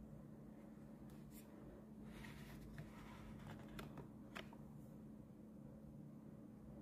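Near silence with faint handling noise from a cardboard box being turned in the hand: a few light clicks and rustles, over a low steady hum.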